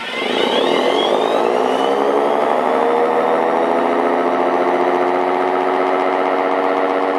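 Mobil-Directo 10/12-port siren winding up for a drill, its pitch rising over the first two or three seconds. It then settles into a steady, loud wail, the 10- and 12-port rotor giving a two-tone chord.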